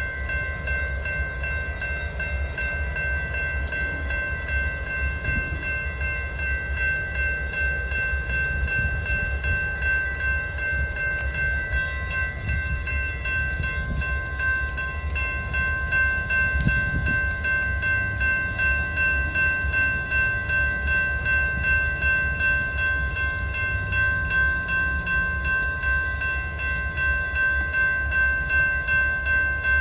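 Train rolling past with a steady low rumble. Several steady high-pitched tones ring over it the whole time, and the loudness pulses in a regular beat.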